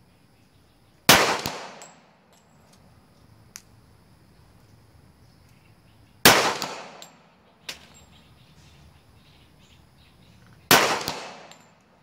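Three single pistol shots fired about five seconds apart, one near the start, one midway and one near the end. Each is a sharp crack followed by an echo that fades over most of a second.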